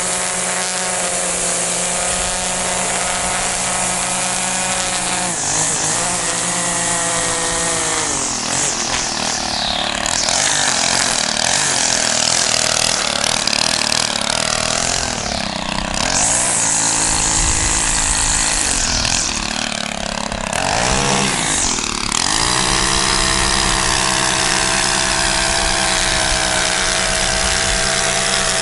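Gas string trimmer running at working throttle while cutting grass along a curb and sidewalk edge. Its engine pitch sags and climbs back several times as the throttle is eased and reopened, then holds steady again for the last few seconds.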